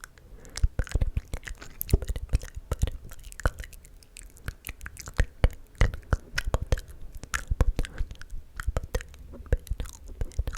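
Close-miked ASMR mouth sounds: a dense, irregular run of wet clicks and smacks from lips and tongue.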